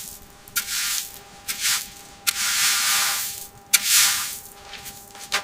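A series of about five short scraping, hissing noise strokes, the longest lasting about a second, over a faint steady hum.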